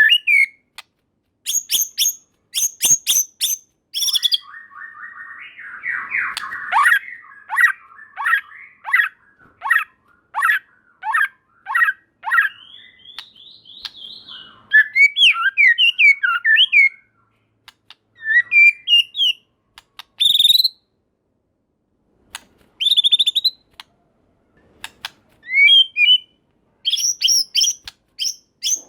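White-rumped shama (murai batu) singing in bursts. Sharp clicks open it, then a buzzing rattle, a run of clear, evenly spaced whistled notes, and quick fluid whistled phrases, broken by a few short pauses.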